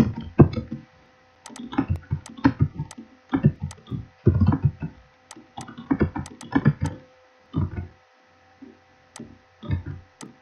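Computer keyboard typing: irregular keystroke taps and clicks in short runs with pauses between them, along with a few mouse clicks.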